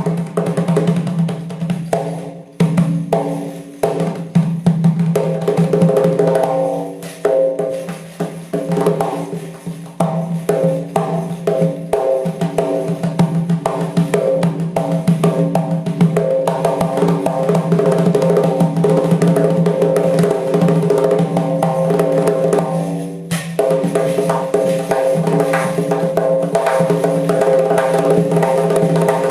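Doira, the Central Asian frame drum with metal rings, played in fast rhythmic strokes and rolls over the ringing tone of its skin. There are short breaks in the pattern about 2.5, 7, 10 and 23 seconds in.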